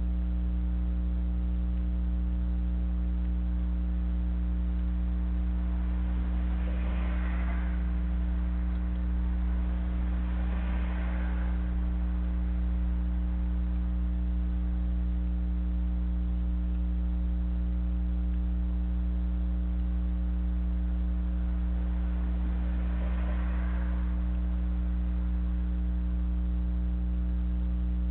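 Steady mains-type electrical hum with a stack of overtones, picked up by a security camera's microphone. Three faint, brief swells of hiss rise over it, about seven, eleven and twenty-three seconds in.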